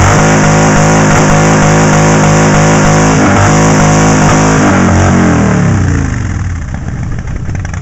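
Cruiser motorcycle engine revved hard and held at high revs for about four and a half seconds, very loud. The revs then fall away and it settles back to idle.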